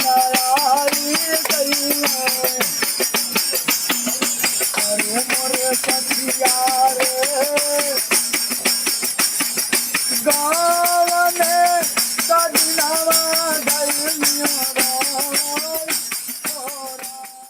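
A man singing a melodious song to a steady jingling hand-percussion rhythm, with the sound fading out at the end.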